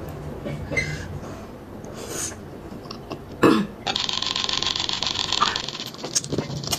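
A short burp with a falling pitch about three and a half seconds in, followed by a steady hiss lasting a couple of seconds, amid small eating sounds close to the microphone.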